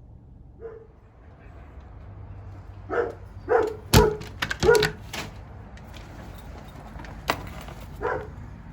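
A dog barking in several short bursts over a low steady rumble, with a couple of sharp knocks in between.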